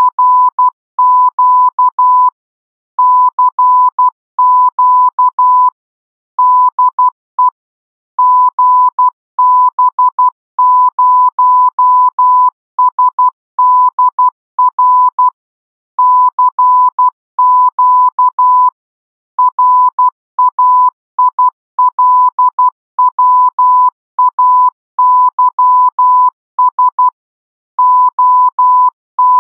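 Morse code: a single steady tone keyed on and off in short dots and longer dashes, sent in letter groups with brief pauses.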